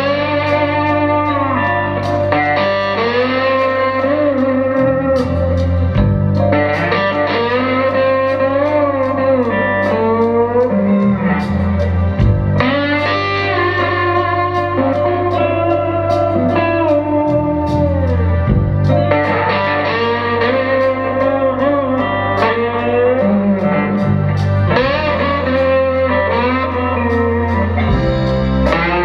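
A live band plays an instrumental passage. An electric guitar lead with bending, gliding notes plays over a steady bass guitar line and drums.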